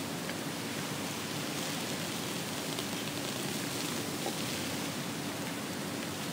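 Steady background hiss with a faint low hum: room tone, with no distinct event standing out.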